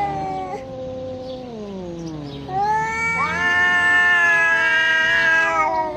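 Angry domestic cat caterwauling: long, drawn-out yowls that slide up and down in pitch, the sound of a cat squaring up to fight. A lower falling moan opens, then a louder, higher wailing yowl runs from about halfway through to near the end.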